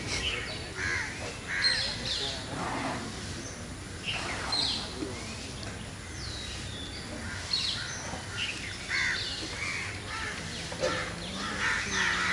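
Birds calling outdoors, many short calls scattered through.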